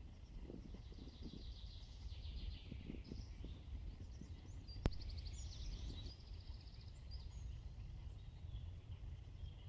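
Faint spring woodland birdsong: several small birds singing trills and short phrases over a low rumble. A single sharp click sounds about halfway through.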